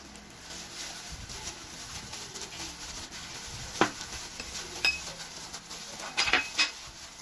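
Plastic-gloved hands squishing and rubbing a whole raw chicken in soy sauce marinade in a glass bowl. Sharp knocks against the glass bowl come about four and five seconds in, one ringing briefly, and a quick cluster near the end.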